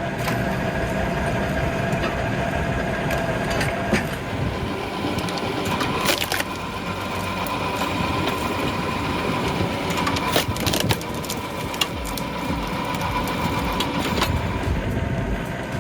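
Hydraulic log splitter running with a steady whine while its wedge forces logs apart, the wood crushing and splitting with several sharp cracks along the way.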